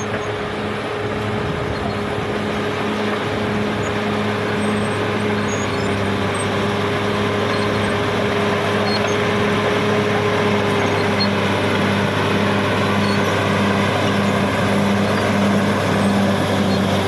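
Caterpillar D6R XL bulldozer running steadily at work, its diesel engine giving a constant hum with a low pulse about twice a second. It grows gradually louder over the first several seconds.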